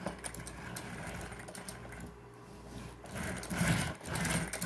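Metal-geared drivetrain of an HSP 1:10 4WD RC drift car worked by hand, its gears clicking and rattling, growing louder about three seconds in.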